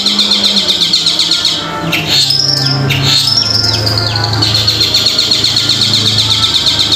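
Long-tailed shrike (cendet) singing: a fast chattering run of high notes, then from about two seconds in a series of sweeping, downward-curving whistled notes, over a low steady hum.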